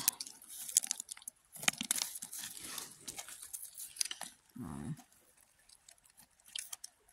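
Close crackling and rustling from a phone microphone rubbing against a nylon jacket, irregular clicks that thin out after about four and a half seconds. A brief hummed voice sound just before the five-second mark.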